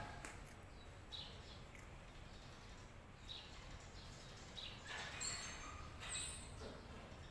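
Faint crunching of a cat chewing dry puffed snacks, in short scattered bites, with a few bird chirps behind it.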